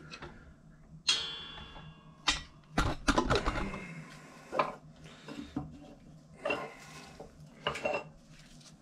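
Sharp metal clanks and clinks, some with a short ring: the loudest about a second in, a cluster around three seconds in, and a few more spread through the rest. These come from a cross-shaped metal pressing plate and a wooden block being handled and lifted off the engine block in a 12-ton shop press after the cylinder liners have been pressed in.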